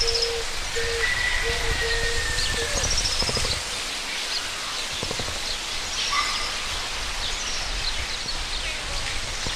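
Small birds chirping and whistling over a steady outdoor hiss, with a run of short repeated low notes that stops about three seconds in.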